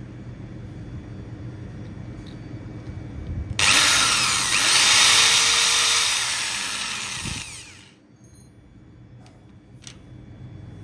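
Electric drill starting up about three and a half seconds in and running for about four seconds as a small twist bit bores through a steel beer bottle cap, then spinning down to a stop.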